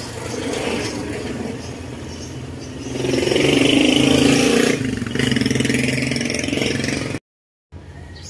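Small motorcycle engine running on the street, getting louder about three seconds in as it revs past, then easing off; the sound cuts out abruptly near the end.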